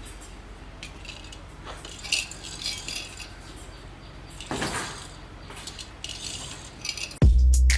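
Light metallic clinks and rattles over a low steady hum. Loud music with a heavy beat cuts in near the end.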